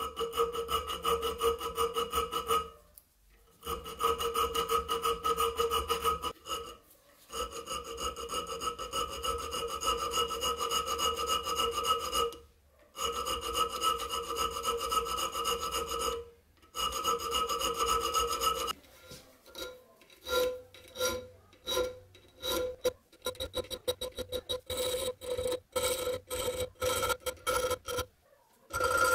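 Small metal file drawn back and forth across a steel knife blade, with the blade ringing steadily under long strokes broken by a few short pauses. In the last third the strokes turn short and quick, about two a second.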